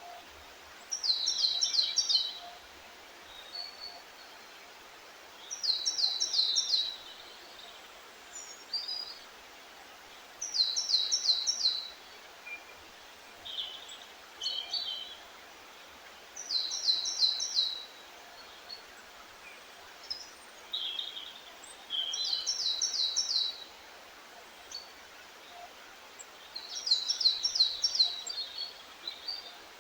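A songbird repeats the same short song six times, about every five seconds. Each song is a quick run of five or six high, falling notes lasting about a second. Fainter single chirps come between the songs, over a steady background hiss.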